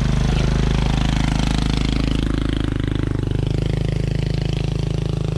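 Dirt bike engine idling steadily, with a fast, even firing pulse.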